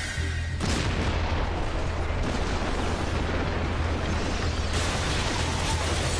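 Anime sound effect of the Colossal Titan's transformation blast, like a nuclear explosion: the blast hits about half a second in and runs on as a dense, continuous rumble over a deep steady drone.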